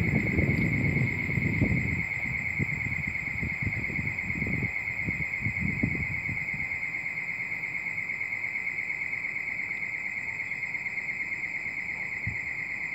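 Departing bi-level commuter train rumbling on the rails, the rumble fading away over the first few seconds and leaving only faint low knocks. Over it a steady, slightly warbling high-pitched trill carries on unchanged.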